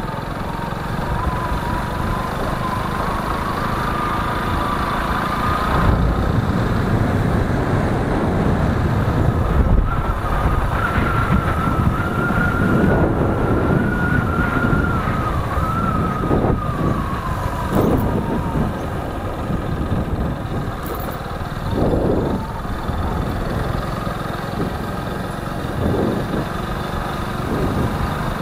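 Motorcycle riding through road traffic: a steady engine and road rumble, with a whine that slowly climbs for several seconds and sinks back about two-thirds of the way through.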